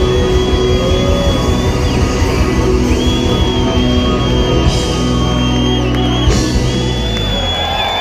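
Live pop-rock band playing loudly through a PA in a large hall, electric guitar over bass and drums, with the crowd faintly audible. Near the end the bass and drums drop out as the song winds down.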